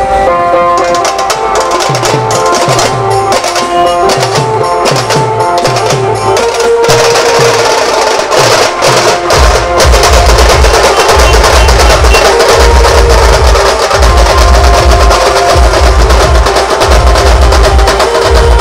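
Dhol drums beaten together with loud music from a horn-loudspeaker sound system. A melody carries the first several seconds, then a heavy pulsing bass beat comes in about halfway through.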